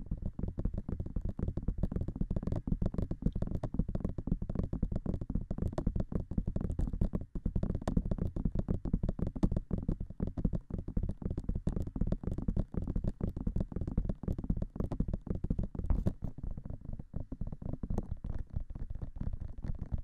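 Fingertips tapping fast on the silicone ears of a binaural microphone: a dense, unbroken patter of dull, low thuds, with a brief break about seven seconds in.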